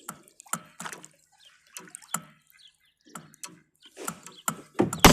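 Water splashing and dripping in small, irregular splashes beside a kayak, with a louder sharp knock near the end.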